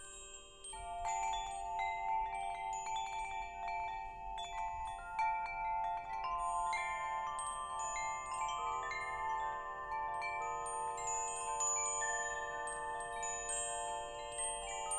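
Wind chimes ringing: many clear tones struck in irregular clusters, each left to ring on and overlapping the others. A fresh flurry of strikes comes in under a second in, after a quieter moment.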